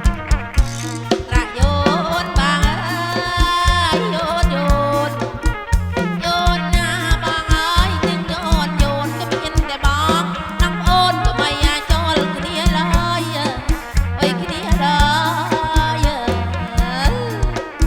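Kantrum folk band playing live through a loud PA: a bending, wavering lead melody over a repeating bass line and a steady drum beat.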